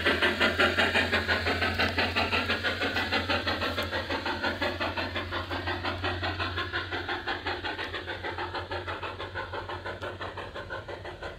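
LGB Mikado G-scale model steam locomotive running, its sound unit giving a quick, even chuffing over a steady low hum. The sound fades steadily as the locomotive moves away.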